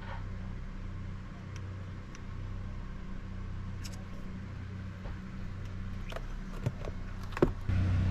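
A few sharp clicks and scrapes from prying a stuck rubber impeller out of a raw-water pump housing, over a steady low mechanical hum that gets louder near the end.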